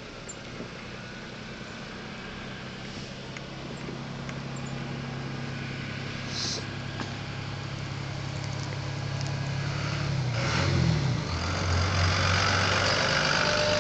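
A motor vehicle's engine running steadily and growing louder. About ten seconds in its pitch shifts, and a rushing hiss joins it.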